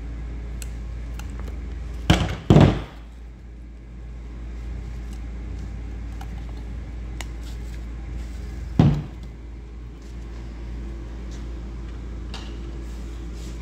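Hand-tool work on a CV axle boot: the metal clamp band being cut with side cutters and the rubber boot worked off the joint. There are two loud knocks about two seconds in and another near nine seconds, over a steady low hum.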